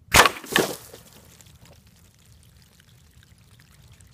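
A homemade pneumatic air cannon firing a cast zinc slug through plastic jugs of water: a sharp bang, then a second loud burst about half a second later. After that comes about a second of water splashing and pouring out of the burst jugs.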